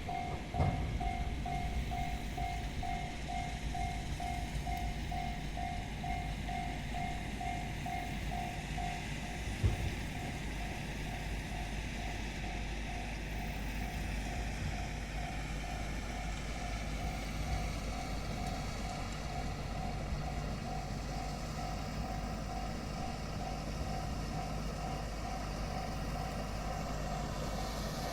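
Japanese railway level-crossing warning bell ringing a steady repeating ding, about two to three strikes a second, over a low rumble. From about halfway a train's running noise grows, and there is a single sharp knock about a third of the way in.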